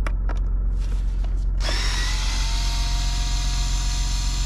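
A power drill-driver with a T20 Torx bit spins up and runs steadily for about three seconds, undoing a Torx screw; a few light clicks of handling come before it.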